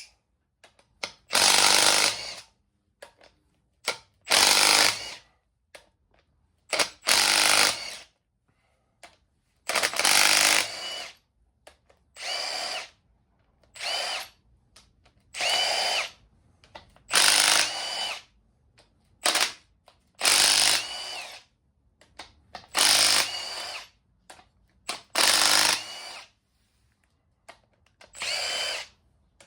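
A power tool run in short bursts of about a second, roughly a dozen times with pauses between, loosening the cylinder head bolts one after another on a Kubota V2203 diesel engine.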